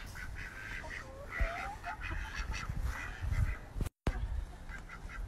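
Domestic ducks quacking and chickens clucking: a string of short, repeated calls. The sound drops out abruptly about four seconds in.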